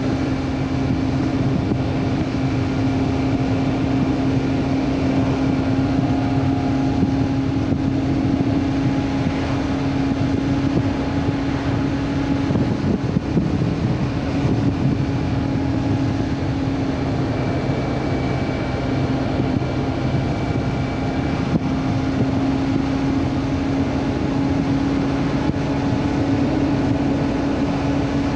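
Honda CB400 Super Four inline-four engine running at a steady pitch while riding at an even speed, under a constant rush of wind noise.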